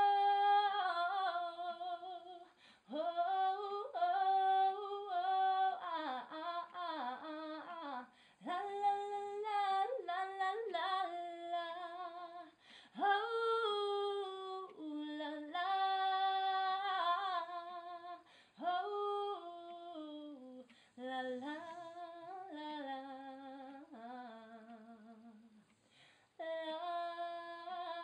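A woman singing unaccompanied without words: wordless ad-lib phrases of held notes and quick wavering runs, with short pauses between phrases.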